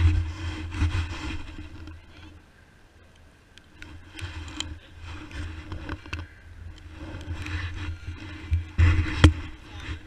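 Wind buffeting the camera microphone in uneven gusts, loudest near the start and again near the end, with a few sharp knocks and scrapes mixed in.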